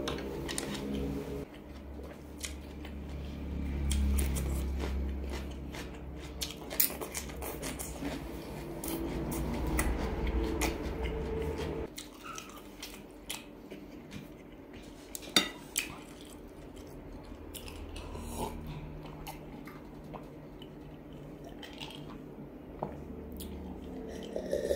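Close-miked chewing of grilled pork sausage. Scattered sharp clicks and clinks come from chopsticks and bamboo skewers against a ceramic plate.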